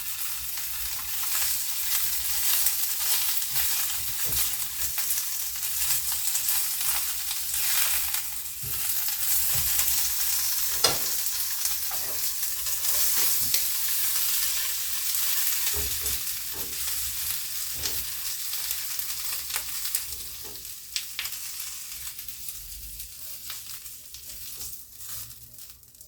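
Chicken pieces frying in oil in a pan, a steady sizzle broken by scattered clicks and scrapes of a utensil stirring them. The sizzle dies down over the last few seconds.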